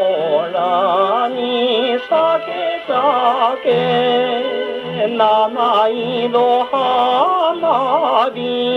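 A 1953 Japanese popular song playing from a 78 rpm record on a Columbia G-241 portable wind-up gramophone: a male singer with wide vibrato sings in short phrases over steady instrumental accompaniment. The sound is thin, with no deep bass and no bright treble.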